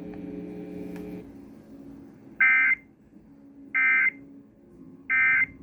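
Emergency Alert System end-of-message code: three short, identical bursts of warbling data tones about a second and a half apart, the signal that the tornado warning broadcast is over. A steady low hum under the end of the message cuts off about a second in.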